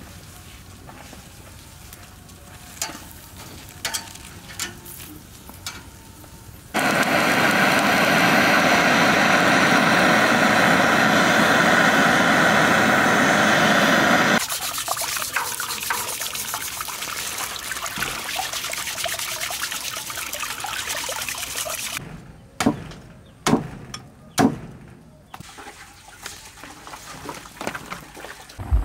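Cow feet being singed: open fire crackling under the grill, then a gas blowtorch hissing loudly for about seven seconds before cutting off. A softer hiss follows, and then a few sharp knocks.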